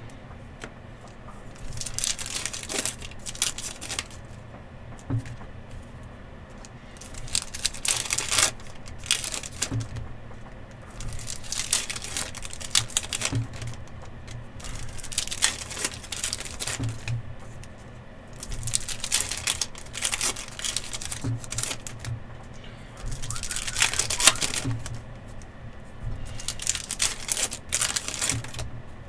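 Plastic card sleeves, top loaders and pack wrappers crinkling and rustling as trading cards are handled, in bursts of a second or two every few seconds.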